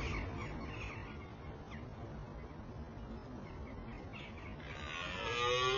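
Low outdoor background with a few faint bird chirps, then about five seconds in a red deer stag begins one long, deep roar.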